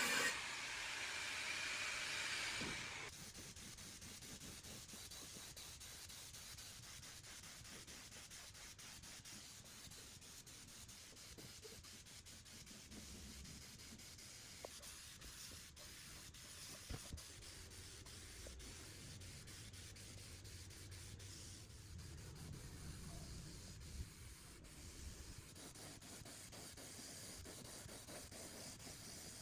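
A louder rushing noise for about the first three seconds, then faint steady rubbing by hand, as in sanding or scrubbing a part, with a few light ticks.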